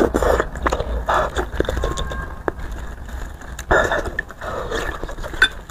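Close-miked mouth sounds of spicy beef bone marrow being eaten, in several short bursts, with a few sharp clicks.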